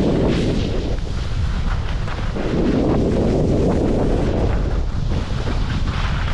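Skis turning through soft spring slush, the edges scraping in two long surges, at the start and from about two and a half seconds in, over steady wind rumble on the microphone.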